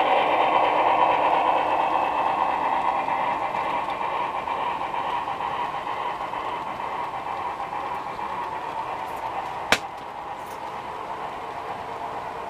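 Model freight train running on the layout behind a model UP 4-6-6-4 locomotive, a steady mechanical rolling noise that slowly fades as the locomotive draws away. A single sharp click about ten seconds in.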